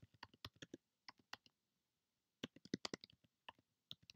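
Typing on a computer keyboard: faint, quick key clicks in short runs, with a pause of about a second midway.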